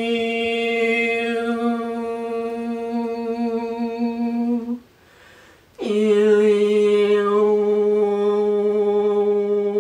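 A woman's voice holding a long, steady hummed note rich in shifting overtones. It breaks off for a breath about five seconds in, then takes up a second long note slightly lower.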